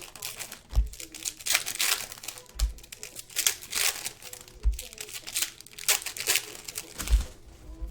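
Trading-card pack wrappers crinkling and tearing in a run of short crackly bursts as packs are handled and opened, with four dull thumps spread through.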